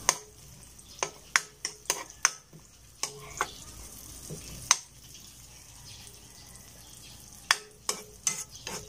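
Metal spatula clinking and scraping against a wok while garlic, onion and ginger sauté in hot oil until golden brown. A steady quiet sizzle runs underneath, with a run of clinks early, a loud one about halfway and a quick cluster near the end.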